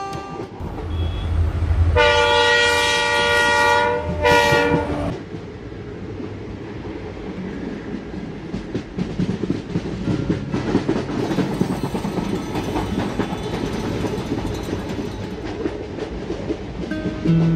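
Train horn sounding twice, a long blast about two seconds in and a short one just after, followed by the steady rumble and clickety-clack of wheels on the rails of a moving passenger train.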